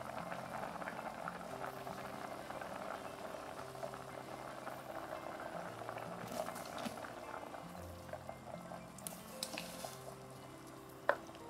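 Pot of gochujang stew boiling hard: a dense bubbling that thins out over the last few seconds, with a few light clicks near the end.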